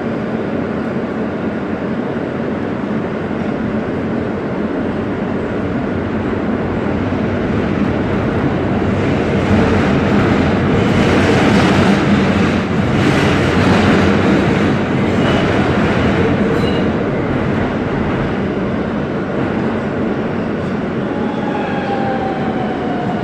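Siemens R160B subway car running through a tunnel, heard from inside the car: a steady rumble of wheels on track, a little louder in the middle. In the last few seconds a whine falls in pitch as the train slows for the terminal station.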